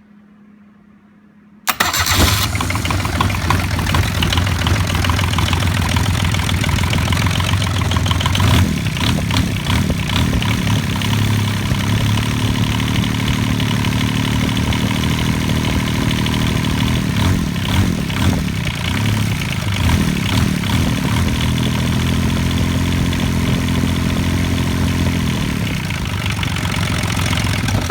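Bench-mounted Kubota D662 three-cylinder diesel starting about two seconds in, then running with its pitch shifting a few times, and shutting off abruptly at the very end.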